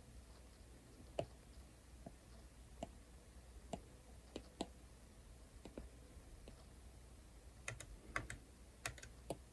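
Stylus tip tapping on a tablet's glass screen: light, sharp clicks at irregular intervals, coming in a quicker run in the last two seconds.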